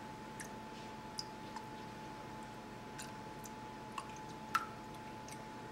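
Quiet room tone: a faint steady hum with a handful of small, scattered clicks, the loudest about four and a half seconds in.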